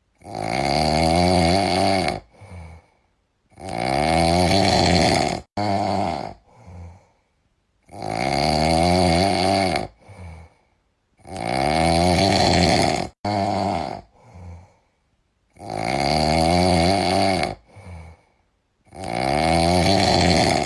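Loud snoring from a sleeping person: six long snores about four seconds apart, each lasting about two seconds, with a short softer breath between them.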